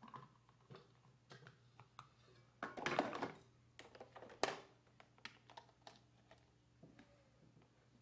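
Stainless thermal coffee carafe and its plastic lid being handled and set into a drip coffee maker: scattered light clicks and knocks, a longer scrape about three seconds in, and a sharp clack about a second and a half later.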